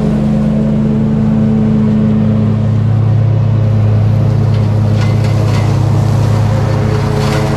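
Bad Boy ZT Elite zero-turn mower's engine running steadily at one constant pitch while it mows.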